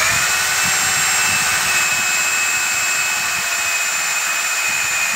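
RYU electric rotary hammer drill running steadily under load, its bit driven into a piece of red brick: a steady high motor whine over a rapid low chatter.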